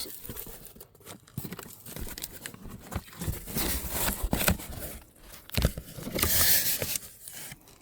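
Packaging of a case of fireworks being handled and opened: irregular rustling, crinkling and tearing, with small knocks, and a longer tearing rustle about six seconds in.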